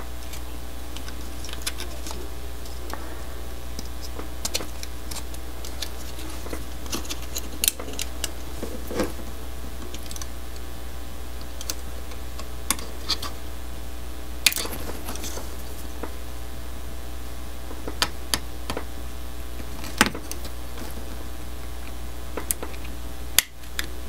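Scattered small clicks and light scrapes of a hobby knife's flat metal blade against a plastic N scale locomotive shell, as the side railing's pins are pried out of the body, over a steady low hum.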